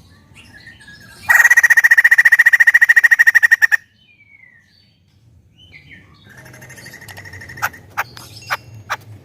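White-crested laughingthrush calling: a loud, rapid rattling trill of about two and a half seconds. After a short pause comes a softer trill, then a few sharp clicks near the end.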